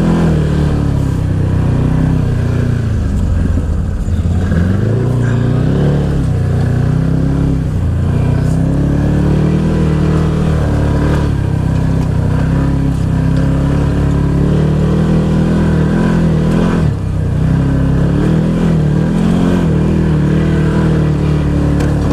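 Side-by-side UTV's engine running under load on a trail, its pitch rising and falling as the throttle changes, with a brief let-off about seventeen seconds in.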